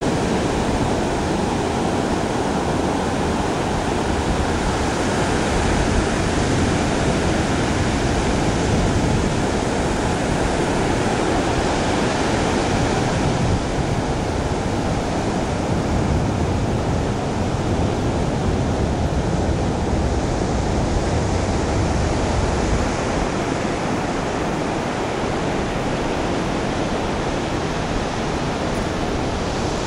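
Surf breaking and washing up on a sandy beach: a steady, even rush of noise with no pauses.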